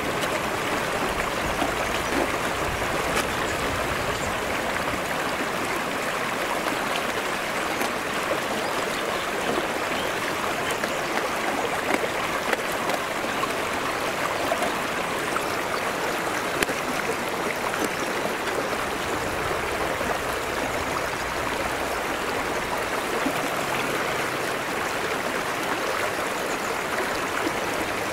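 Shallow stream running steadily over a rocky bed, an even babble of flowing water.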